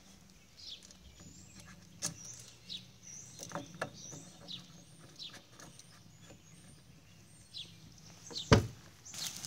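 Light clicks of a plastic chainsaw fuel cap and its retaining wire being handled and fitted, while a bird gives repeated short falling chirps. A single loud thump comes near the end, followed by a rustle.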